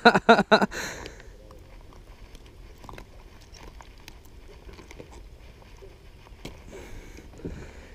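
Faint scattered clicks and rustles of hands handling a largemouth bass and working a topwater frog lure free of its mouth, after a short shout in the first second.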